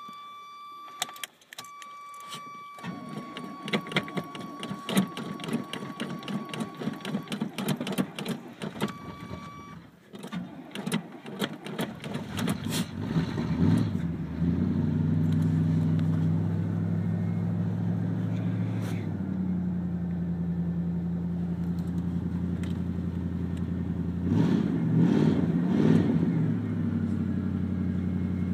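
Chevrolet Silverado pickup cold start: the key-in-ignition buzzer sounds while the starter cranks the engine, the cranking pauses about 10 seconds in and resumes, and the engine catches about 14 seconds in and settles into a steady idle. Engine speed rises briefly near the end.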